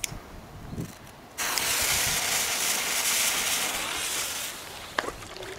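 A lighter clicks, then about a second and a half in the fuse of a K 65 firecracker catches and hisses loudly and steadily for about three seconds before fading. Near the end comes one short sharp plop as the lit firecracker is thrown into the water.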